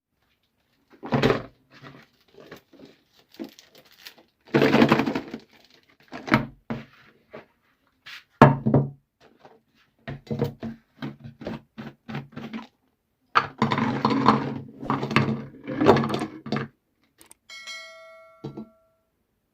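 Meat grinder crushing Oreo cookies: irregular bursts of crunching and cracking as the cookies are forced through. Near the end there is a short ringing tone.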